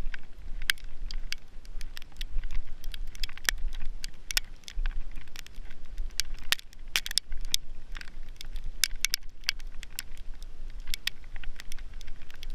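Sleet pellets ticking irregularly in quick, scattered clicks, over a low rumble.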